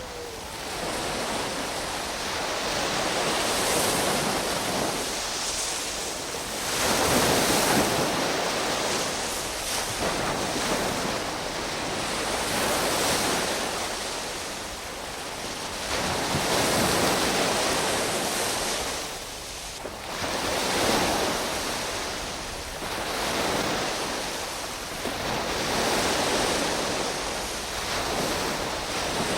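Sea waves surging and washing in, the rush of water swelling and easing every few seconds.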